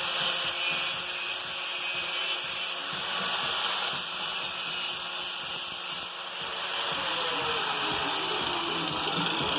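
Cheap handheld electric grinder running against a dull steel mower blade, a steady high whine over grinding hiss. Its whine drops in pitch over the last few seconds.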